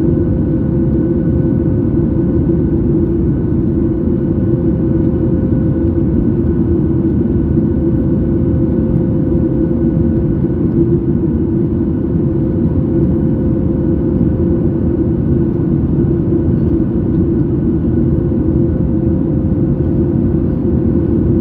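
Steady cabin noise of a Boeing 737 MAX 8 in flight, heard inside the cabin: a deep, even rumble of its CFM LEAP-1B engines and the airflow, with a faint steady hum above it.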